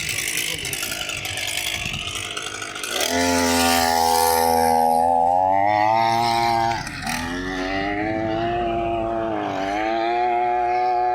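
Two-stroke chainsaw engine driving a motorised bicycle, first running rough, then climbing about three seconds in to a high, buzzing whine at high revs that wavers and dips briefly twice as the throttle changes.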